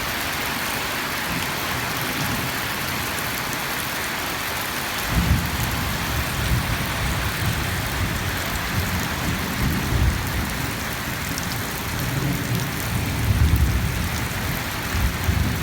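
Heavy rain pouring steadily, a dense even hiss. About five seconds in, an uneven low rumbling joins it and comes and goes for the rest of the time.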